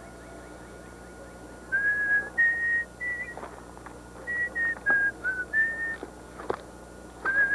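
Someone whistling a tune: a string of clear held notes that step up and down in pitch, starting about two seconds in, with a short pause in the middle. A few faint clicks fall between the notes.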